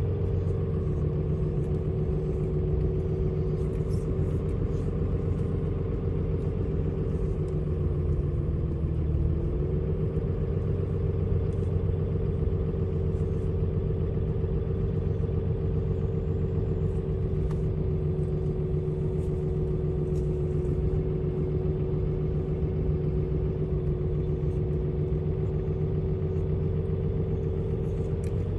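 Pickup truck towing a heavy, fully loaded fifth-wheel trailer at steady speed: a continuous drone of engine and road noise with a steady tone that dips briefly in pitch about nine seconds in.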